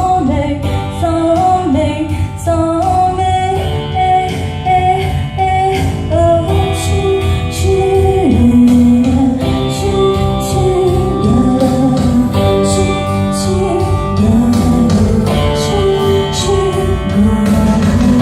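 A song with singing, guitar and a steady beat, played back through a Bandwidth BWV-2 audio system as a sound-quality test.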